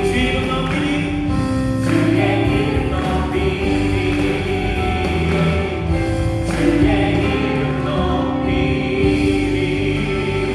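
A worship team of women singers singing a Korean praise chorus together through microphones, over amplified band accompaniment.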